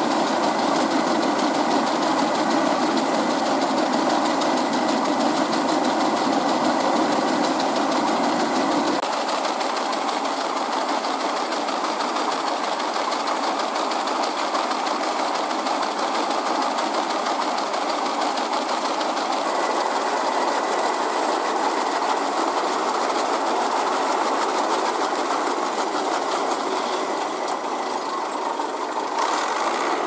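Kartar TAF 360 rice combine harvester running steadily while its unloading auger pours threshed paddy out of the spout: a continuous mechanical noise from the engine and auger.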